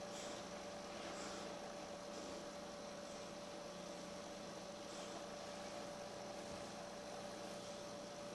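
Faint steady electrical hum, one constant tone over a low hiss: the background noise of the recording, with no other sound standing out.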